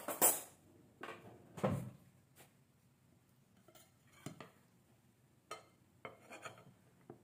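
Metal tongs and a metal serving spoon clinking and clattering against a glass baking dish: a string of separate knocks, the loudest right at the start.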